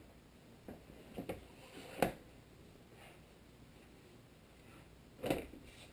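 A few light clicks and knocks of engine parts being handled during the head gasket fitting. There are several small clicks in the first two seconds, the loudest about two seconds in, and a slightly longer knock a little after five seconds.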